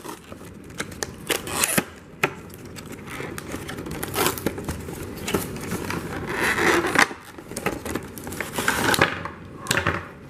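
Unpacking noises: packaging rustling and tearing, with irregular clicks, scrapes and knocks as parts are pulled out of the box. The rustling is densest a little after the middle.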